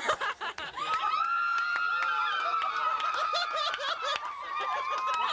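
A small group of women shrieking and laughing in mock fan hysteria. About a second in, one long, high, steady scream sets in and is held over the laughter.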